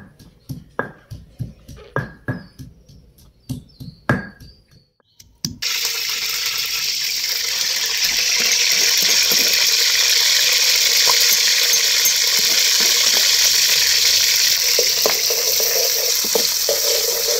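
About ten sharp knocks of a wooden pestle pounding in a stone mortar. Then, some five seconds in, a loud steady sizzle starts suddenly as ground ginger-garlic paste hits hot oil in an aluminium karahi and is stirred.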